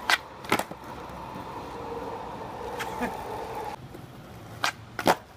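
Skateboard on concrete: a sharp clack of the tail popping, then the wheels landing about half a second later. The wheels roll with a steady hum for about three seconds, and near the end three more sharp clacks of the board come in quick succession.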